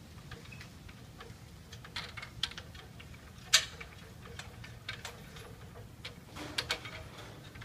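Scattered light clicks and taps over a low steady hum, with one sharp click about three and a half seconds in and a quick cluster of clicks near the end.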